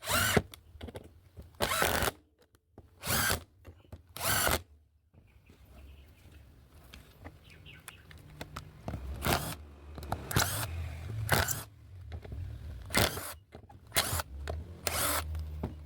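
Bosch GDR 120-Li 12 V cordless impact driver driving 2-inch gypsum screws into wood at its higher speed setting, running in repeated short bursts.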